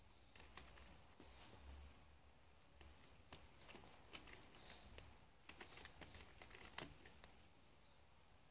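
Faint scattered clicks and light rustling of small fingers picking at a baby bouncer seat's plastic harness buckle, coming in three short flurries with quiet between them.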